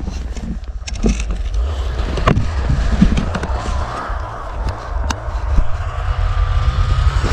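Wind buffeting the microphone: a loud, gusty low rumble, with a few scattered clicks.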